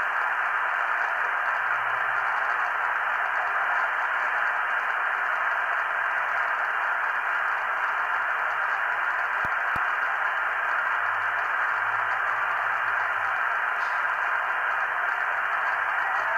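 Icom IC-R71A communications receiver on the 11-meter band in upper sideband, giving out a steady hiss of band static with no station transmitting: the channel is open between transmissions.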